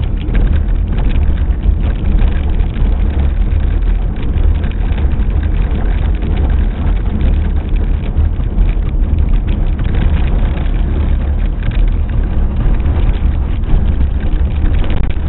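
Car driving on a gravel road: a steady low rumble of tyres and engine with a constant fine crackle of gravel.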